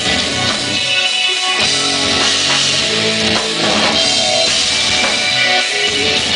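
A rock band playing live: electric guitar over a drum kit with a pounding bass drum, loud and continuous.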